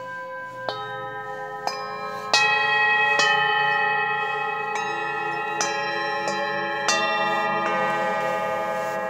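Hand-hammered singing bowls (moon bowls) struck one after another with a mallet, about nine strikes. Each strike rings on in several long tones that overlap into a sustained chord, some of them wavering slowly, loudest about two seconds in.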